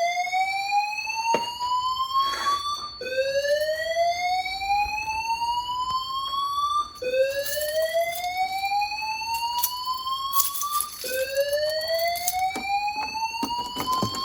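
Fire alarm evacuation tone from a Pertronic F4 panel, a slow whoop: each sweep rises steadily in pitch over about four seconds, then drops back and starts again. It means the alarm has been set off by test smoke in a smoke detector. A faint steady high tone sounds under it.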